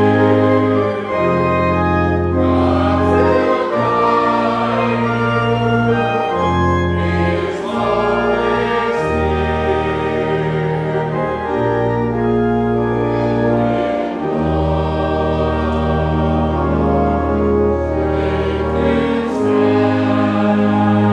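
Church pipe organ playing sustained chords over a deep bass line that changes every second or two, with a choir singing.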